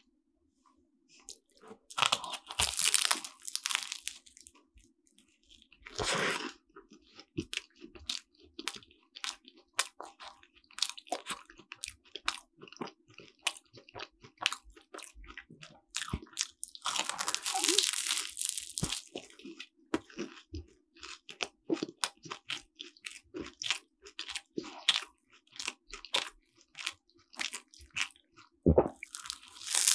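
A person biting into and chewing a cream-filled croissant, the flaky pastry crunching: four loud crunchy bites spread through the clip, with chewing and small crackles between them.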